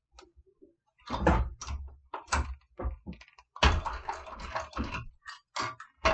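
Industrial walking-foot sewing machine (TechSew 2750) stitching slowly through layered leather in short, uneven bursts of knocking needle strokes, taking it carefully to climb over a thick seam on a hump jumper.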